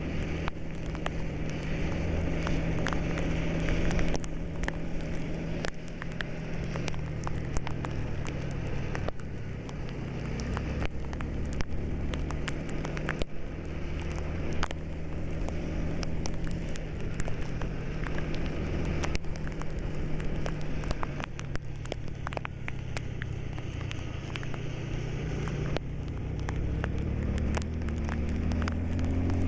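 Bus engine droning steadily under way, heard from inside the vehicle, with many small sharp clicks and rattles all through. The engine note starts to rise near the end.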